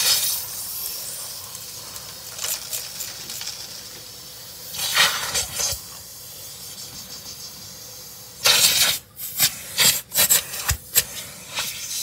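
AirVac central vacuum hose drawing air with a steady hiss. A louder rush of suction comes about five seconds in, and another from about eight and a half seconds that breaks up into short, stuttering bursts.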